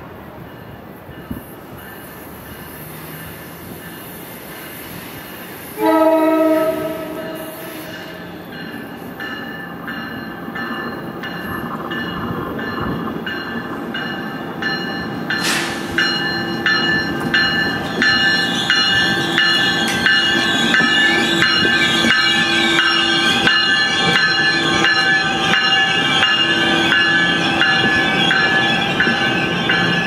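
An NJ Transit electric locomotive sounds its horn in one blast of about two seconds, about six seconds in. Then the arriving train's wheels squeal high and steadily, with a regular clicking of wheels over the rail joints, growing louder as the locomotive and bilevel coaches pass.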